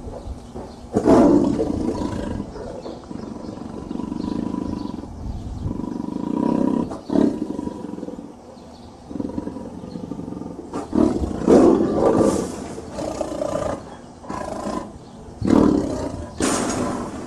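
Tiger growls and roars: loud rough bursts about a second in and twice in the second half, with lower rumbling growls between.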